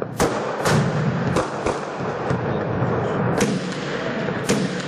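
Gunfire and blasts echoing between buildings: about six sharp reports spread over a few seconds, each trailing off in a ringing echo.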